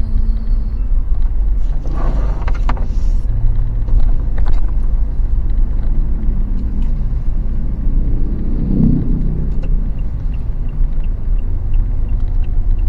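Road vehicle running, a steady low rumble, with a couple of brief rustling or knocking noises over it.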